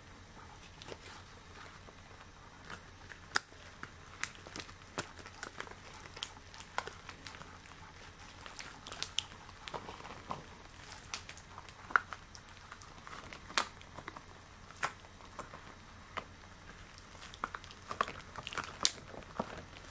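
Extra-long latex gloves being handled, rubbed and stretched, giving irregular crinkling and crackling with scattered sharp clicks, a few much louder than the rest.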